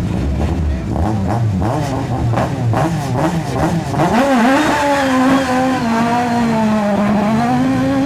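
Peugeot 306 Maxi rally car's four-cylinder engine at high revs, with quick rises and falls in pitch broken by short gaps through the first half. From about halfway it holds one long hard-revving pull that sags briefly and climbs again near the end.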